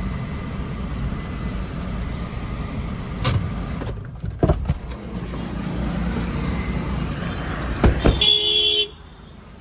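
Steady rumble of a motor vehicle in road traffic, with a few sharp knocks and a short horn honk near the end.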